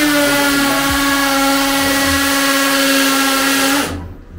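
Electric drill boring into a tiled bathroom wall, running at one steady pitch, then winding down near the end.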